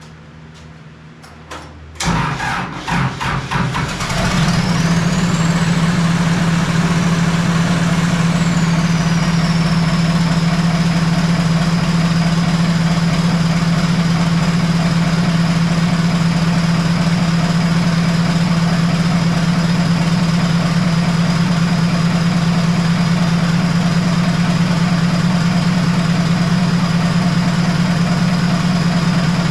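The skid steer's Cummins diesel engine cranks for about two seconds, catches, and settles into a steady idle. A high whine climbs with the start, holds, and then drops to a lower steady pitch a few seconds later.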